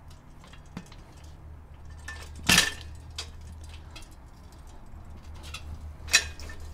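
Folding workbench parts being handled and fitted: scattered light metallic clinks and clicks, with two sharper knocks about two and a half seconds in and again near the end.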